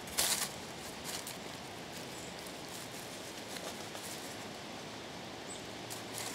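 Outdoor ambience: a steady background hiss with a few short rustles and clicks, the loudest just after the start, and one brief high chirp near the end.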